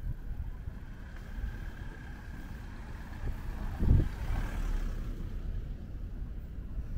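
Street ambience: a low steady rumble of vehicle traffic, with a single dull thump about four seconds in.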